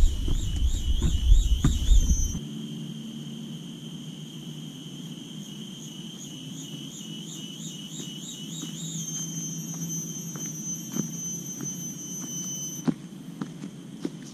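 Cicada singing: a high buzz pulsing about four times a second that settles into a steady whine, pulses again, then holds steady and stops shortly before the end. A loud low rumble on the microphone fills the first two seconds, and a few light footsteps crunch on dry leaf litter near the end.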